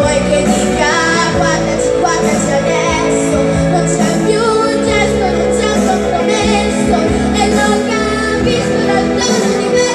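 A boy singing a pop song into a microphone over instrumental backing music, carried by the stage sound system.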